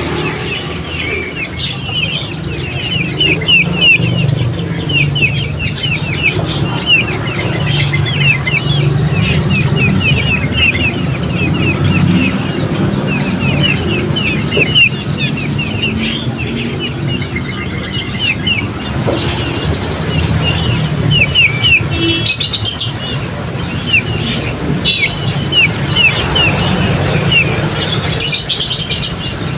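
Songbirds chirping in fast runs of short, high chirps, several a second, over a low steady rumble.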